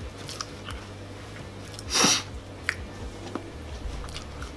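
A quick, loud snort through the nose about two seconds in, with faint clicks and rustles of handling around it.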